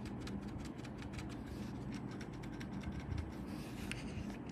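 Typing on a mechanical keyboard fitted with Outemu silent switches: irregular key clicks, several a second, over a steady low hum.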